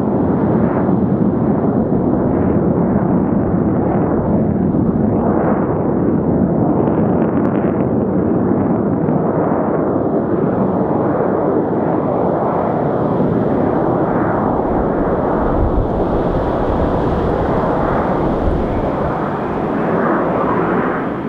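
A formation of BAE Hawk T1 jet trainers flying overhead, their Adour turbofans making a loud, steady jet roar with a deep rumble that eases off near the end.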